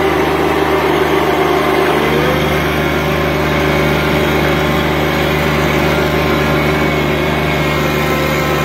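John Deere 1025R subcompact tractor's three-cylinder diesel engine running steadily at about 3,000 rpm under load as the tractor climbs a steep hill in low range four-wheel drive.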